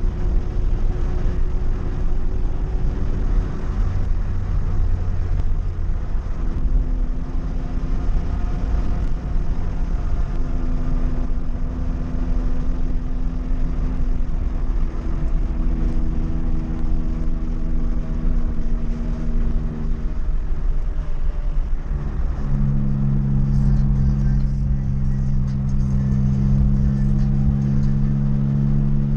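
Volkswagen Gol engine running steadily under load with a heavy road rumble, its engine note holding and then shifting in pitch several times, loudest in the last several seconds.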